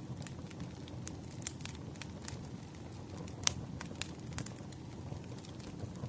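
Campfire crackling: irregular sharp pops and snaps over a steady low rumble of burning, with one louder pop near the middle.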